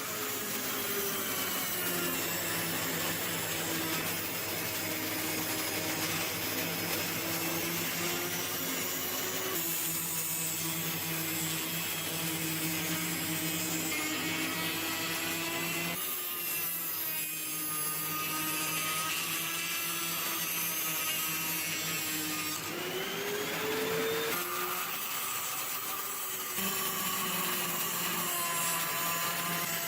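Electric power tool motor running steadily, its pitch sagging and recovering as it works under load, with abrupt changes where the footage is cut.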